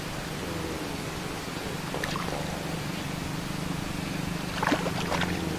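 A steady low motor drone over running, trickling water, with a quick cluster of sharp clicks near the end.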